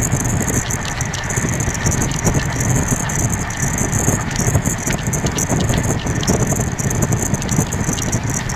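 Amrit Bharat Express train running, heard from on board: a steady rumble with continual irregular rattling.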